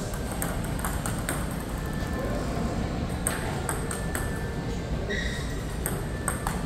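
Table tennis balls clicking in quick succession off rubber-covered paddles and the table during a forehand drill, over a hall's steady murmur of voices.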